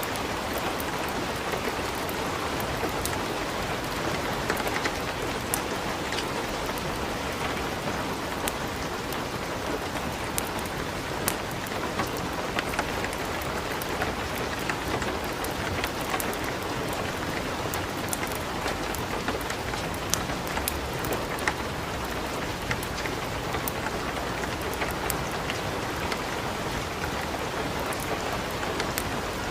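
Light rain falling steadily, mixed with a wood fire crackling in a fireplace, giving frequent short sharp pops and ticks over the even hiss.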